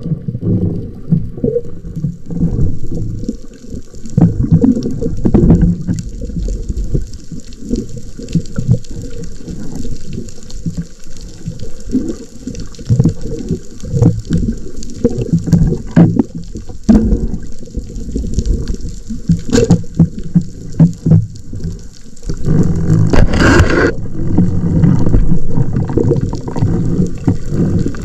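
Underwater sound picked up by a camera on a speargun during a freedive: water moving over the housing as a loud, uneven low rumble, with scattered clicks and a faint high hiss. It grows louder about two-thirds of the way through, with a brief hissing burst soon after.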